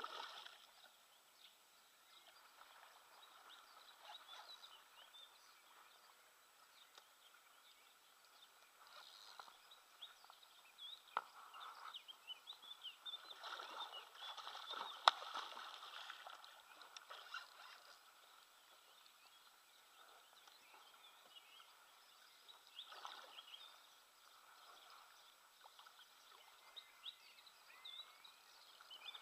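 A hooked wels catfish splashing at the surface beside a kayak, in swells of splashing near the middle, with one sharp slap. Birds sing faintly in the background.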